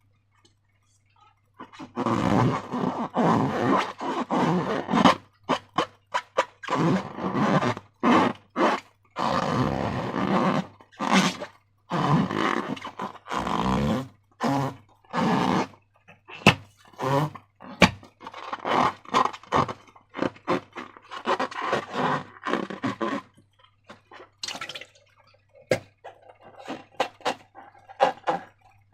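Slime being squished and squeezed by hand, giving irregular bursts of wet squishing and crackling, thickest through the first part and sparser near the end.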